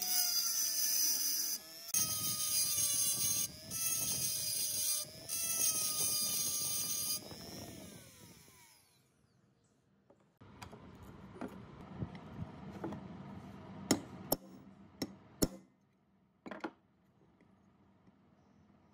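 Handheld rotary tool with a small abrasive disc grinding rust off a steel hacksaw frame: a high, wavering motor whine with grinding hiss in several short passes, then the motor winds down after about seven seconds. After a short lull, a series of sharp clicks and knocks as the metal frame is handled.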